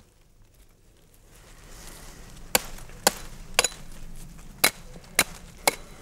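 Hatchet chopping into a small oak pole, trimming off its side branches: six sharp blows in two groups of three, starting about two and a half seconds in.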